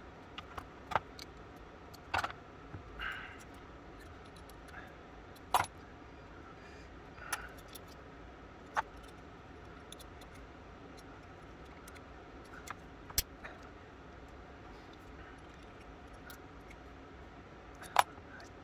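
Small metal parts of an antique pistol lock and a steel spring clamp clicking and clinking as they are handled, while the clamp is worked to compress the pistol's mainspring. The sharp clicks come singly at irregular intervals, about a dozen of them.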